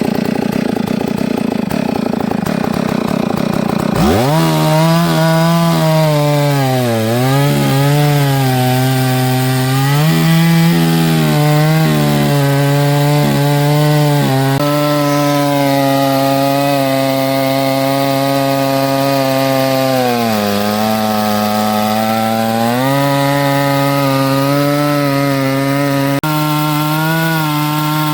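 Chainsaw on an Alaskan chainsaw mill ripping a log lengthwise into planks. After a few seconds of steady rough noise, the saw revs sharply up to full throttle about four seconds in and runs on in the cut. Its pitch sags several times as the engine bogs under the load of the long cut, then recovers.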